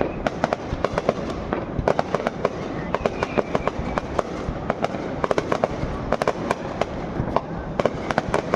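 Fireworks going off in a dense, irregular barrage of sharp bangs, often several in quick succession, over a steady low rumble.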